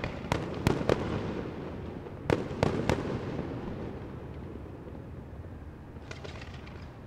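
Aerial fireworks shells bursting: three sharp bangs in the first second and three more a little over two seconds in, each trailed by a fading rumble. Faint crackling follows near the end.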